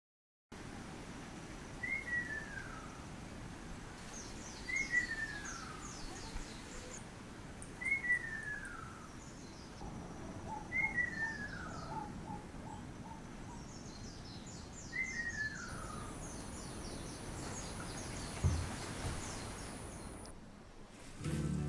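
Ruddy kingfisher calling: a falling, rolling whistle repeated five times, about every three seconds, with smaller birds chirping higher up over a steady outdoor hiss.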